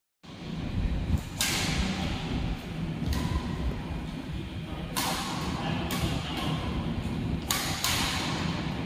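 Badminton rackets hitting a shuttlecock in a rally: sharp hits a second or few apart, each ringing on in the echo of a large hall, over a steady low rumble.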